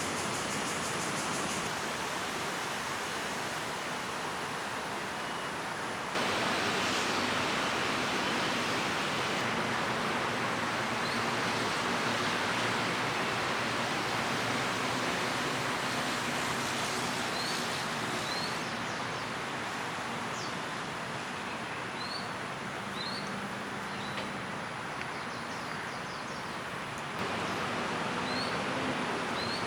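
Juvenile crested goshawk giving short, high, rising chirps, spaced out and repeated, over a steady hiss of park background noise.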